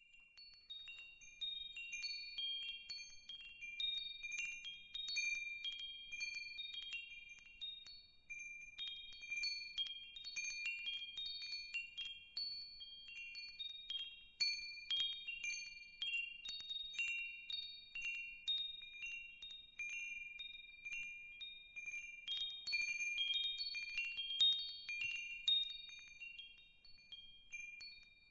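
Wind chimes tinkling: many high ringing notes at a handful of pitches, struck at random and overlapping, with no steady beat.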